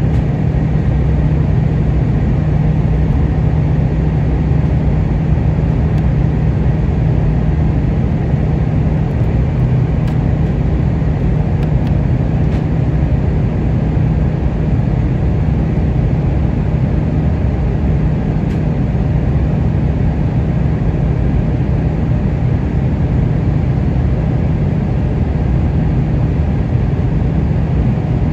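Airbus A320 cabin noise heard from a seat beside the wing while descending on approach: a steady drone of the jet engines and rushing airflow, with a constant low hum.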